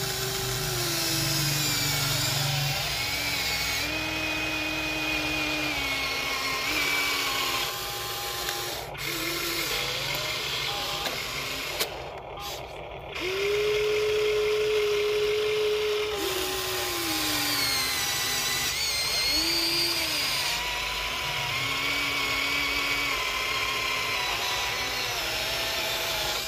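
Electric gear motors of a radio-controlled toy excavator whining as it lifts its boom, swings and digs sand. The whine shifts up and down in pitch as each movement starts, changes and stops.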